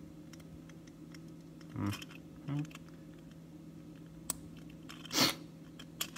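Small plastic clicks and light scraping from fingers handling a 1/64 diecast model car's plastic base and wheel axle, with a sharp click about four seconds in and a brief louder rustle a little after five seconds, over a faint steady hum.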